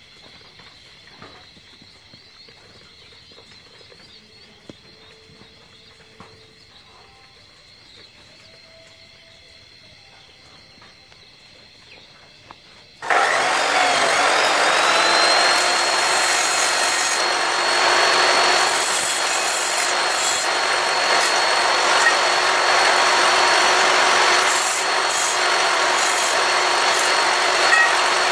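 Quiet for the first half, with only faint chick sounds. Then an abrasive cut-off saw starts: its motor whine rises and settles into a steady high whine, and the disc grinds through steel square tubing in repeated harsher bursts.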